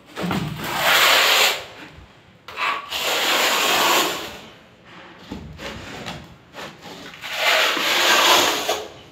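A small metal blade scraping along combed tile adhesive on a wall: three long, loud scrapes, with a few shorter, quieter ones between.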